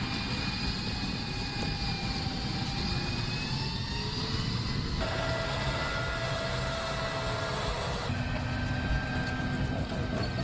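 M1 Abrams tank on the move, its gas turbine engine giving a steady high whine over the rumble of the running tracks. The sound changes abruptly twice, about five and about eight seconds in.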